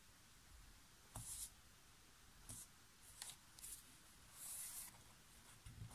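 Faint rustling of paper being handled and pressed down by hand: a few short soft swishes and one longer rub about four seconds in.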